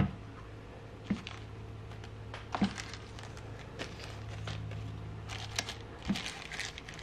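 Small plastic parts bags crinkling, with light clicks and taps as the small parts are handled. The crinkling is densest from about five to six and a half seconds in. A low steady hum runs underneath and stops about six seconds in.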